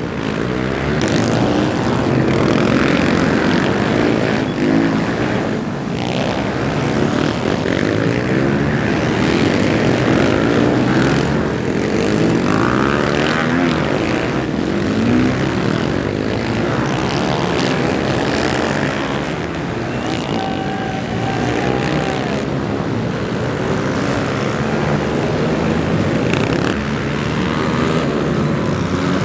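Several dirt-bike engines racing together, their pitches rising and falling over one another as the bikes accelerate, back off and pass.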